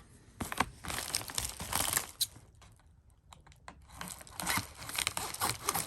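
Packaging of a mail delivery crinkling and rustling as it is handled, with a quieter lull and a few small clicks in the middle before the rustling picks up again.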